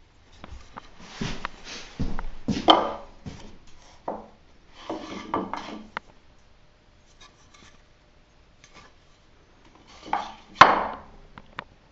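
Pine angle brackets being handled and set in place: wood scraping and rubbing on wood, with scattered knocks. The loudest knocks come about two and a half seconds in and near the end.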